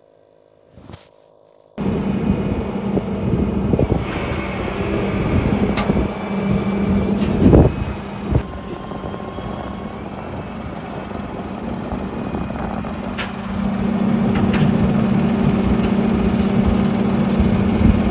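Motor vehicle running, a steady engine hum over rumbling noise with a few knocks. It starts suddenly about two seconds in.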